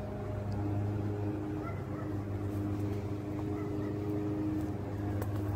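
A steady low machine hum, like a motor running, with a few fainter steady tones above it.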